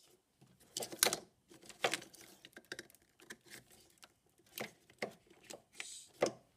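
Plastic wiring-harness connectors being handled and pushed together by hand: a series of irregular short clicks and rattles of plastic and wire.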